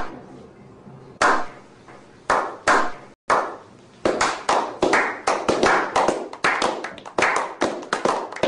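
A slow clap by a small group of men. Single hand claps come about a second apart at first, then from about four seconds in more hands join and the clapping quickens into steady applause.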